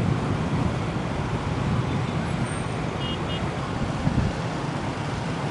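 Steady road traffic noise from motorbikes and cars, an even wash of engines and tyres, with two short faint high beeps about three seconds in.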